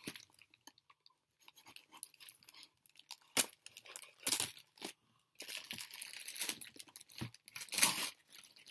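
Toy packaging being opened by hand: plastic wrap and cardboard crinkling and tearing, with a few sharp snaps about three and four seconds in. Denser crinkling follows from about halfway through.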